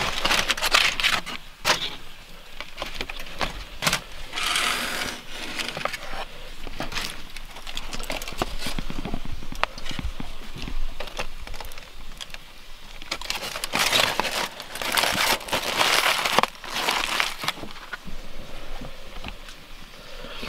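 Aluminium foil crinkling and rustling as it is unwrapped and pulled open by hand, in bursts near the start, a few seconds in and at length about two-thirds through. Scattered light clicks and knocks come between the bursts.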